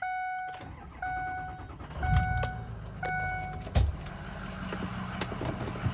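Cab warning chime dinging about once a second while the 2005 Ford F-250's 6.0-litre Power Stroke turbodiesel V8 cranks and fires on a cold start, about two seconds in. A sharp thump comes just before four seconds, then the engine settles into a steady idle.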